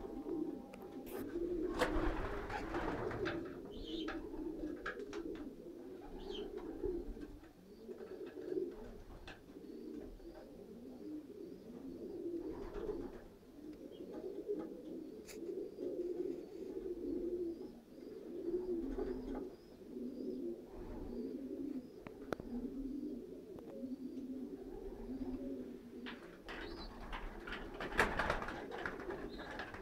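Young racing pigeons cooing together in a loft, many birds overlapping in a continuous low cooing, with a few sharp clicks or knocks near the start and again near the end.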